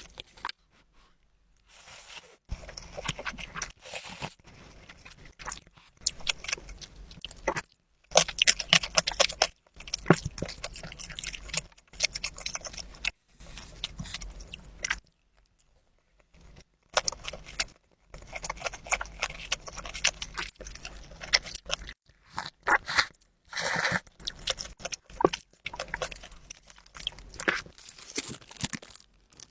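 Close-miked eating sounds of noodles and gimbap: wet, clicky chewing and mouth noises in bursts of a few seconds, with short pauses between them.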